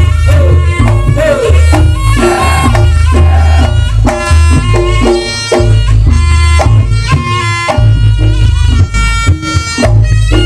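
Reog gamelan music played loudly: a shrill double-reed slompret holding and bending its melody over heavy kendang drum strokes and the repeating notes of kenong and gongs in a steady beat.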